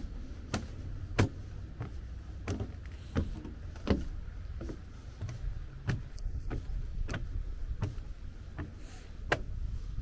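Footsteps of someone walking, several landing as sharp clicks or knocks roughly two-thirds of a second apart with gaps between, over a steady low rumble.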